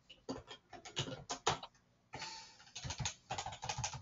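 Typing on a computer keyboard: irregular key clicks, with a brief pause a little before halfway.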